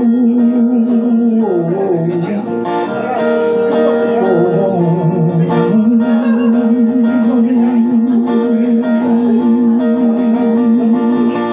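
A man singing with a strummed acoustic guitar. He holds long notes with a wide vibrato, one at the start and a longer one from about six seconds in until nearly the end, with a short moving phrase between them.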